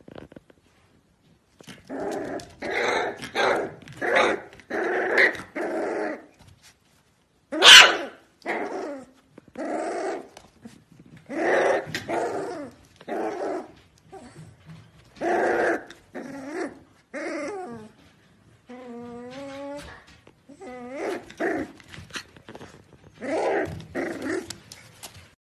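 Corgi puppy giving a string of short, high barks, with one sharp, louder bark about eight seconds in and a longer held whining call a little past the middle.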